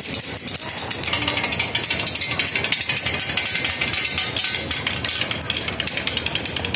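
Bicycle freewheel ratchet clicking rapidly and continuously as the drivetrain is turned by hand.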